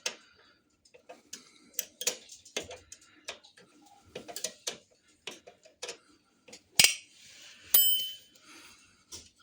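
A hand tool clicks, taps and scrapes irregularly on the metal of a motorcycle's rear brake caliper while a pad-retaining pin is unscrewed. There is a sharp knock about seven seconds in, and a bright metallic clink that rings briefly just after.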